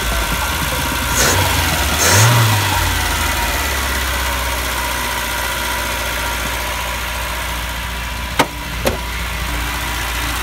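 1984 BMW E30's engine idling, with a short rise in revs about one to two seconds in. Two sharp clicks come near the end.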